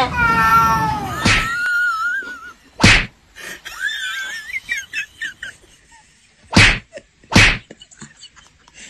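A cat yowling, a drawn-out call that falls in pitch and ends about a second in. It is followed by three sharp, loud thumps, the last two less than a second apart.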